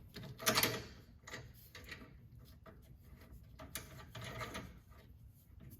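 Scattered metal clicks, clinks and short scrapes as a bolt is worked by hand into a sway bar end link and its mount, the loudest scrape about half a second in.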